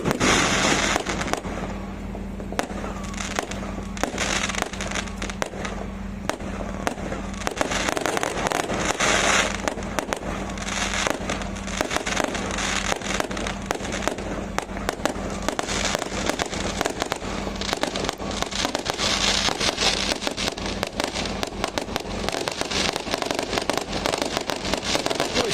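Firecrackers and fireworks going off in a dense, continuous crackle of rapid pops, with louder bursts every few seconds.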